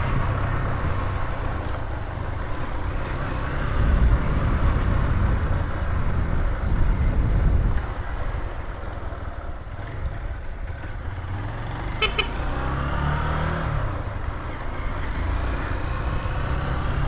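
Honda CG 150 Titan's air-cooled single-cylinder four-stroke engine running under way while riding, its pitch shifting about two-thirds of the way through. The owner is chasing an abnormal noise in this engine, which he suspects comes from the cylinder head.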